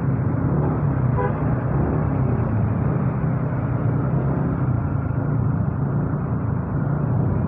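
Motorcycle engine running at low speed in slow traffic, a steady hum with surrounding traffic noise, picked up through an earphone used as a microphone. A brief faint beep sounds about a second in.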